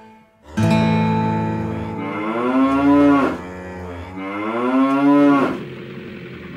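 A cow mooing: two long moos, each rising and then falling in pitch.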